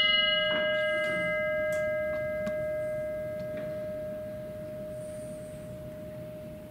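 A bell struck just before, ringing on with one clear main tone and a few higher overtones and slowly fading away. The highest overtones die within a few seconds while the main tone keeps sounding. It is struck once after each name is read in remembrance.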